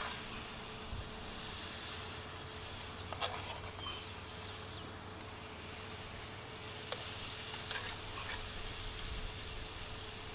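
A metal spatula clicking and scraping against a cast iron Dutch oven a few times as fried potatoes are lifted out, over a steady low hiss and a faint insect buzz.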